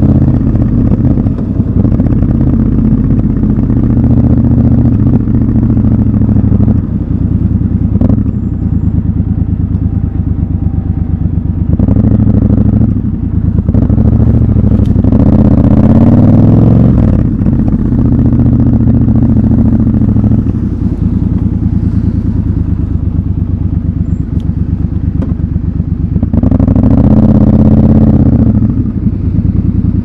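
Triumph Scrambler 1200 XC's 1200 cc parallel-twin engine running through city riding. The exhaust note rises in pitch as the bike accelerates, clearly about halfway through and again near the end, and drops back between.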